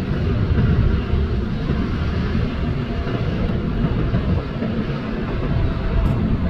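Jet noise from a four-engined Boeing 747 freighter rolling along the runway: a steady, low-pitched noise without breaks.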